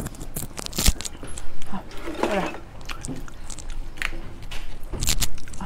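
Close-miked eating sounds: wet chewing, lip smacks and mouth clicks from a mouthful of century egg and yogurt, with a short voiced 'mm' about two seconds in.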